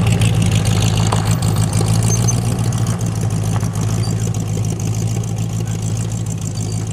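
De Tomaso Pantera's Ford V8 idling through its quad exhausts, a steady low rumble that grows gradually quieter as the car creeps slowly away.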